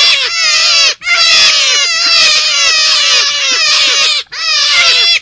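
Calls sold as a forest rabbit (kelinci hutan) lure call: a fast, loud series of short squealing notes, each sliding down in pitch, about five a second. The series breaks off briefly about a second in and again near the end.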